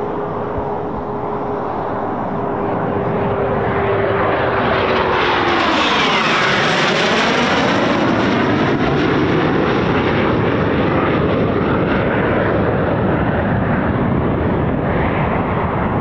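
Eurofighter Typhoon's twin EJ200 jet engines as the fighter passes low and close: loud jet noise with a steady whine that drops in pitch about six seconds in as the aircraft goes by, then continuing loud jet noise as it moves away.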